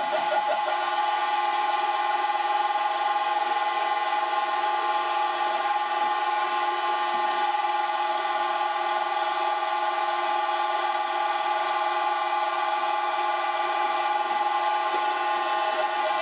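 A 1 hp, 940 RPM electric motor running from a variable frequency drive and driving a vintage Karger lathe. It gives a steady whine of several fixed pitches that holds unchanged throughout.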